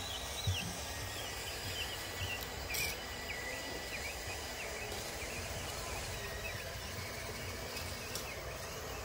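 Outdoor ambience: small birds chirping repeatedly over a steady low rumble.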